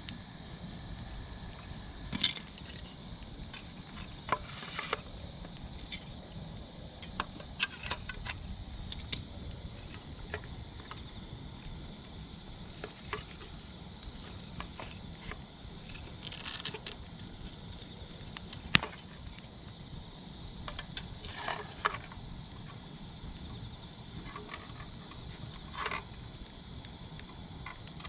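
Wood campfire crackling, with irregular sharp pops and a few short hissing flare-ups over a steady low hiss.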